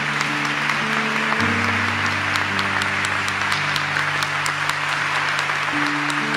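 Congregation applauding, a dense patter of many hands clapping, over instrumental music of sustained chords that change every second or two.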